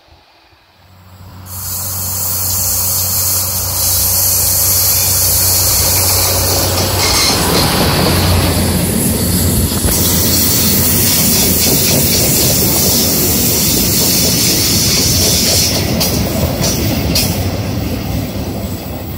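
Freight train of sliding-wall boxcars rolling past close by: loud, steady wheel-on-rail running noise with a few sharp clicks near the end. It rises to full loudness within the first two seconds.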